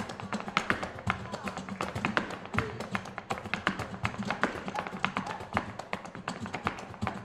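Flamenco footwork (zapateado): a male dancer's shoes striking the floor in a quick, uneven run of sharp stamps and taps, over flamenco music.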